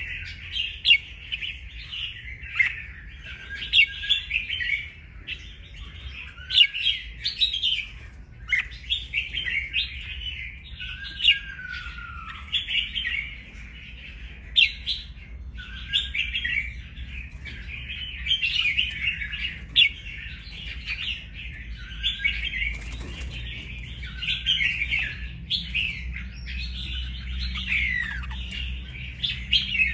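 A red-whiskered bulbul, newly wild-caught and about a week in its cage, singing and chattering: quick chirping phrases and short whistled glides, almost without a break.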